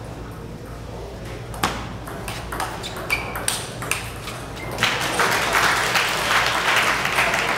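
Table tennis rally: the ball clicks sharply off paddles and table about six times, then the crowd applauds the won point from about five seconds in.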